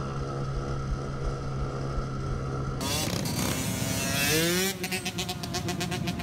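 Mini-bike motorcycle engines running: a steady engine note, then a cut to louder riding noise with an engine revving up about four seconds in, followed by a rapid run of regular pulses near the end.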